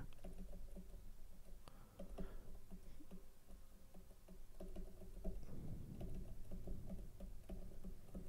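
Faint, irregular taps and scratches of a stylus writing on a tablet screen, a little busier in the second half.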